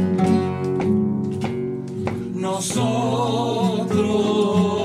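Acoustic guitars playing a slow bolero, strummed chords with picked melody notes. Singing with vibrato comes in a little past halfway.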